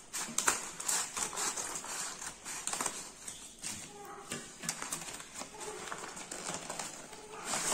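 Scissors snipping through a paper courier mailer, with the stiff paper crinkling and rustling as the packet is handled: an uneven run of sharp clicks and crackles.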